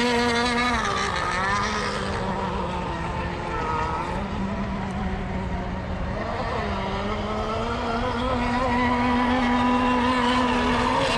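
Radio-controlled racing boats running laps together, their small engines making a steady high whine. Several pitches overlap; they dip about a second in and again around six seconds, then climb back as the boats come out of the turns.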